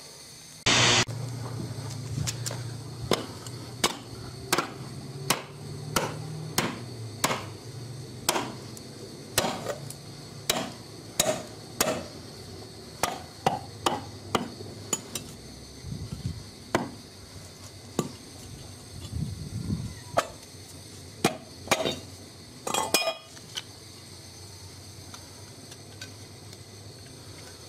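A metal casting mold for lead diving weights knocked repeatedly against a concrete floor to free the cast lead weight: sharp knocks about one a second, stopping a few seconds before the end.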